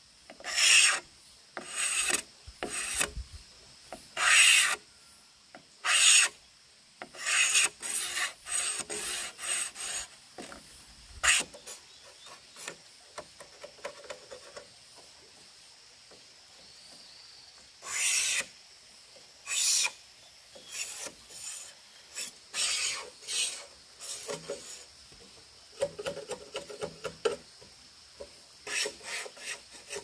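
Rasping, scraping strokes of a hand tool on bamboo, each a short burst, coming about a second apart. A quieter lull of several seconds falls in the middle before the strokes start again.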